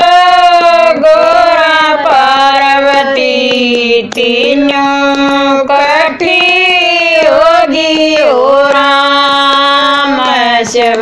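Women singing a Haryanvi devotional bhajan together in long held, drawn-out notes, with hand claps keeping the beat.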